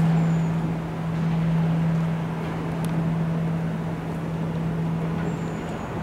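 Large Japanese temple bell (bonshō), struck with a swinging wooden log, ringing on after a strike: one steady low hum that lingers with no new strike.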